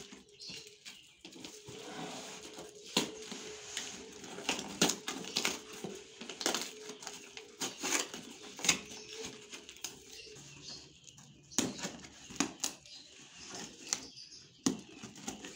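Packing tape being picked at and ripped off a cardboard box, with irregular sharp tearing clicks and the scraping and rustling of the cardboard being handled.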